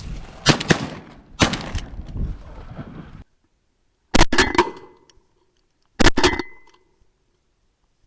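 Shotgun blasts from duck hunters firing on ducks on the water: a quick volley of shots in the first second and a half, then two more close groups of shots about four and six seconds in. Wind noise runs under the first three seconds.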